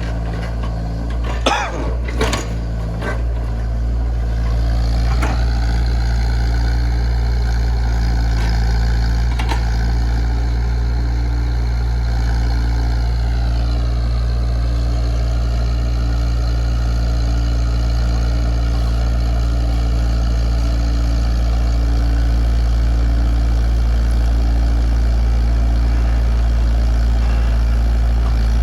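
Komatsu PC68 excavator's diesel engine running steadily under a constant low drone, with a couple of sharp knocks in the first few seconds. A higher whine joins about four seconds in and drops in pitch around the middle, then holds steady.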